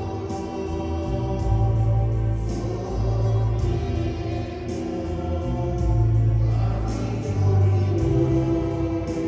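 A choir sings a slow hymn in a reverberant church over low held bass notes that change about once a second.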